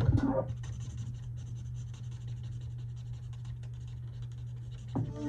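Faint scratching of a marker on paper, over a steady low hum. Background music stops about half a second in and comes back near the end.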